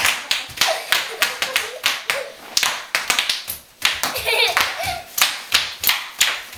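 Bubble wrap popping in a quick, irregular run of sharp pops, several a second.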